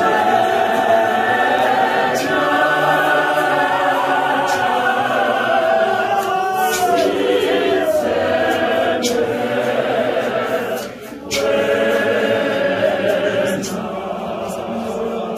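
A congregation singing together unaccompanied, many voices at once, with a brief drop about eleven seconds in.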